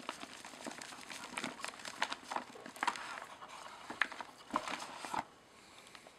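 Dry roots and clinging soil crackling and snapping as gloved hands pull and twist apart a dug-up lily bulb clump tangled with dahlia roots. The crackles come irregularly and stop about five seconds in.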